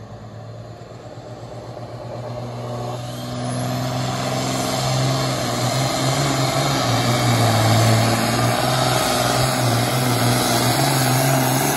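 Allis-Chalmers 210 tractor's turbocharged six-cylinder diesel at full load dragging a weight-transfer pulling sled. It gets much louder about three to five seconds in, then holds a heavy, steady pull.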